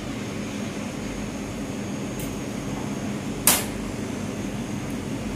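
Steady hum and rush of a commercial kitchen exhaust hood fan, with one sharp click about three and a half seconds in.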